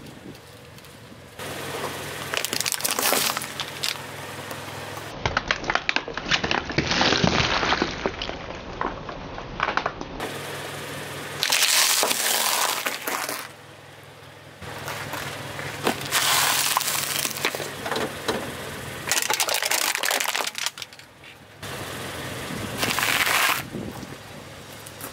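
A car tyre rolling slowly over objects on asphalt, crushing them in several separate spells of crunching and cracking, including a glass jar breaking under the tyre about midway. A low engine hum runs under some of the crushes.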